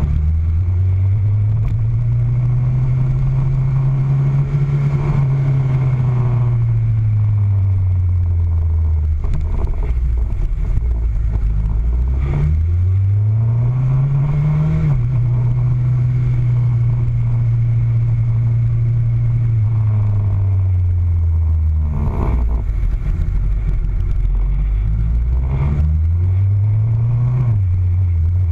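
Motorcycle engine running along at steady speed. Twice its pitch climbs under acceleration and then drops back sharply as it shifts up a gear.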